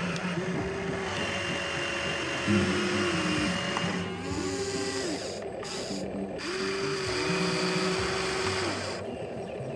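Small electric motors of a remote-control toy excavator whining, speeding up and slowing down in several short spells as the machine works.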